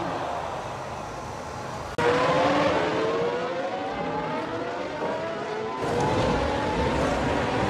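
Formula One car engines revving high, their pitch climbing over and over as they accelerate through the gears. The sound is quieter for the first two seconds, then jumps louder abruptly, and shifts again near six seconds.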